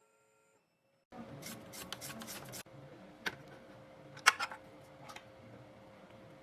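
Metal clicks and a short rattle from handling the key cutting machine's clamp and the freshly cut dimple key, over a faint steady hum. A single sharp click about four seconds in is the loudest.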